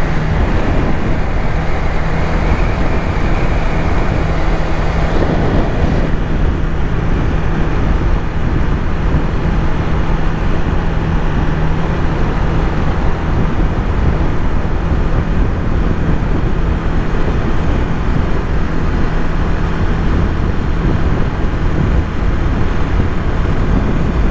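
Honda Rebel 300's single-cylinder engine running steadily at riding speed, with road and wind noise.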